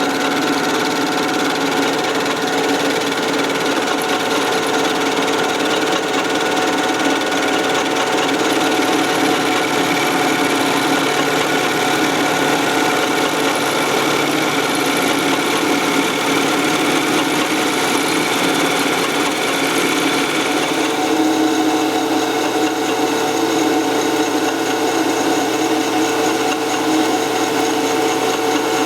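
Metal lathe running under power, turning down a mild-steel bar with an indexable cutter: a steady machine whine with several held tones over the noise of the cut. The sound changes about two-thirds of the way through.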